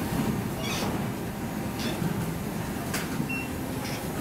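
Boarding queue moving along an airport jet bridge: a steady low rumble with scattered clicks and knocks of footsteps and bags, and one short high beep about three seconds in.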